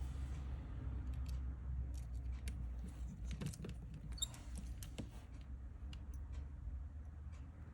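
Small clicks and taps of a precision screwdriver and hand tools working on a phone, scattered and densest in the middle, over a low steady hum.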